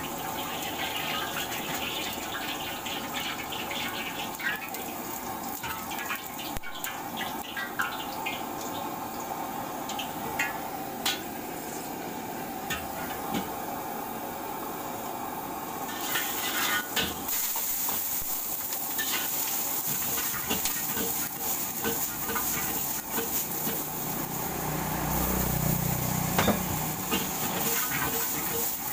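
Wok frying on a gas burner: the burner runs steadily while a metal spatula clanks and scrapes against the wok now and then. About 16 s in, a loud sizzle and hiss of steam starts as food hits the hot wok, and near the end a low whoosh of flame flaring up around the wok.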